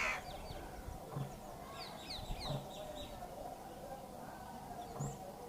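Village birds calling: a few quick, high, falling chirps about two seconds in, over short low calls that repeat roughly every second and a half.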